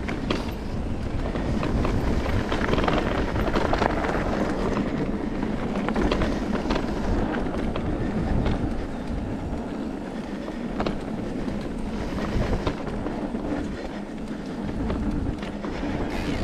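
Electric mountain bike rolling along a dirt forest trail: steady tyre noise with constant rattling and clicking from the bike over the rough ground, and a low rumble.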